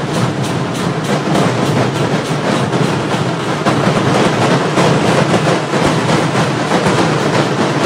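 A large massed troupe of dhol-tasha style drummers beating big drums with sticks in unison, a loud, fast, steady beat.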